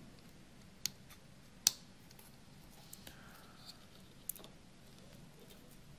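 Small plastic clicks as a Grove cable plug is pushed into its socket on a micro:bit Grove shield: two sharp clicks about a second apart early on, then a few fainter ticks of the wires and plug being handled.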